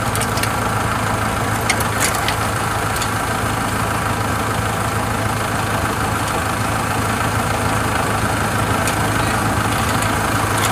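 Kubota combine harvester's diesel engine idling steadily, with a few light metallic clicks over it.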